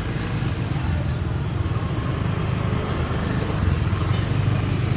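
Steady low rumble of road traffic, continuous and even throughout.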